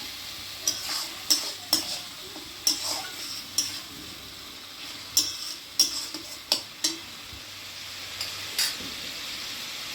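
A spatula scraping and knocking against a kadai while tomato paste frying in oil with onion and garlic is stirred, over a steady sizzle. The sharp clicks come irregularly and stop near the end, leaving only the sizzle.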